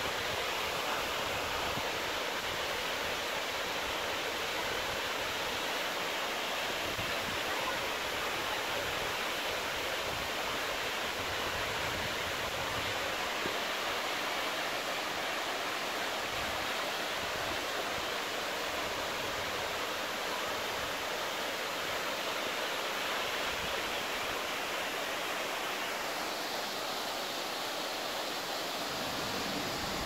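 Aya waterfall, a 14-metre fall over rock, rushing steadily. Near the end its sound turns thinner and brighter.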